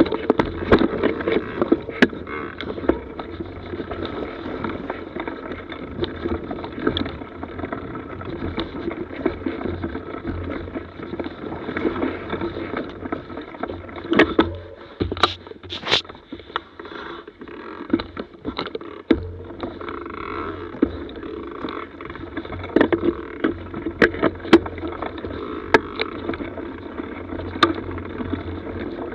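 Mountain bike rolling over a rough forest trail: a steady rumble and rattle from the tyres and frame, with sharp knocks over bumps. About fifteen seconds in the bike slows almost to a stop and the noise drops for a few seconds, broken by a few sharp knocks, then the rolling rattle picks up again.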